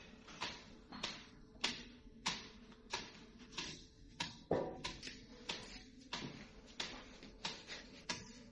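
A long wooden stick beating a heap of leafy stalks on a cloth mat, in a steady run of strikes a little under two a second, each a dull hit with a brief rustle of the leaves.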